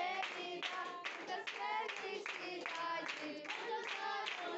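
A group of people clapping their hands in time, with voices singing along.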